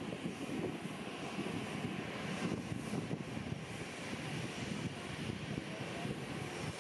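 An airliner's jet engines running: a steady, rough noise with no clear pitch, strongest in the low and middle range.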